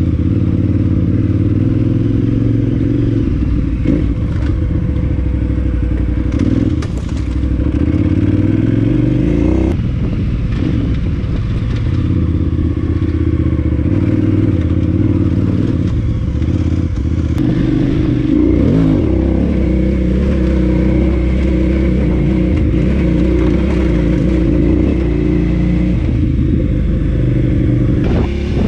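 KTM 990 Adventure S's V-twin engine running while riding, its note shifting pitch a few times with the throttle, with a few short knocks and rattles from the bike.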